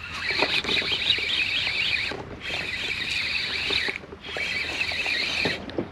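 Squeaking and scraping in three stretches of about a second and a half to two seconds, each ending in a short break.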